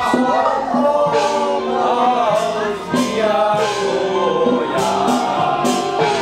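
Several voices singing a drawn-out melodic chant together, with percussion strikes every second or two.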